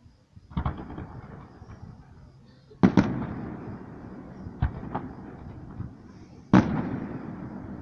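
Aerial firework shells bursting in the sky: about six bangs, the loudest a close double about three seconds in and another about six and a half seconds in, each followed by a long fading echo.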